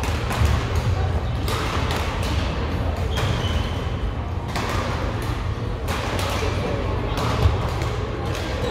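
Badminton rackets hitting a shuttlecock at irregular intervals in a large indoor hall, over a steady low hum and people talking.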